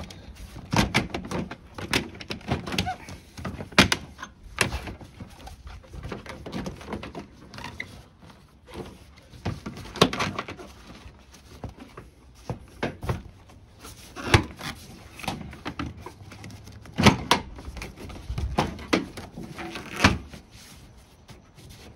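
Hard plastic knocking and thunking as a plastic upper radiator cover is worked and pressed into place over the radiator support. The knocks come irregularly, with louder ones about ten, fourteen, seventeen and twenty seconds in.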